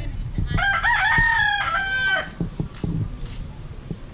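A rooster crowing once, a single call of about a second and a half that starts about half a second in.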